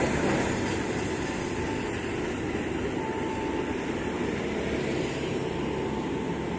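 Container freight train's wheels rumbling on the rails as it runs away down the line. The rumble fades over the first couple of seconds and then holds steady and low.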